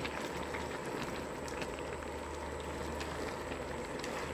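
Water at a rolling boil in a wok of durian flowers: steady bubbling with many small pops. The flowers are being parboiled to draw out their astringency.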